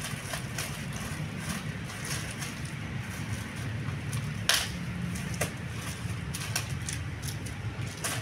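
Plastic packaging bags crinkling and rustling as they are handled and opened, in scattered crackles with one louder crackle about halfway through, over a steady low hum.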